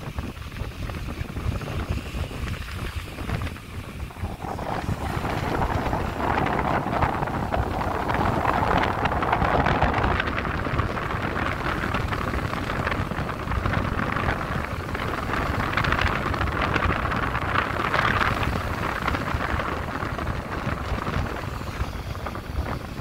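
Small waves washing and breaking against shoreline rocks, swelling from about four seconds in, with wind buffeting the microphone.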